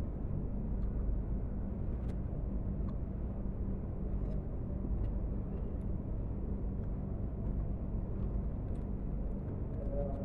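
A steady low hum of background room noise, with a few faint small clicks as fingers pick at food.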